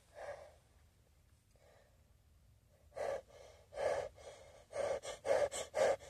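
A person's short, sharp breaths, one at the start and then six more from about three seconds in, coming faster and louder: the build-up to a sneeze.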